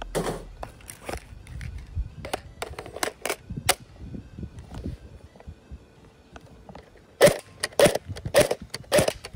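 Airsoft gun firing single shots, sharp clicks about two a second that start about seven seconds in and are the loudest sound here. Before them come scattered lighter clicks and knocks.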